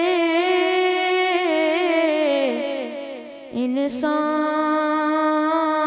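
A boy singing a naat into a microphone, drawing out long, wavering held notes. About three and a half seconds in, the note falls away; after a brief click, a new held note begins.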